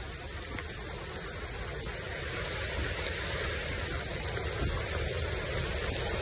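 Heavy monsoon rain pouring steadily onto forest foliage and plastic rain ponchos, a dense even hiss that gradually gets louder.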